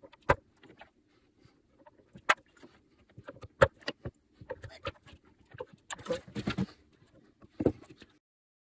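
Handling noise: separate sharp clicks and knocks as glass tubes with copper end caps are pushed into their sockets on a wooden case, with a quick cluster of rattling knocks about six seconds in. The sound cuts off just before the end.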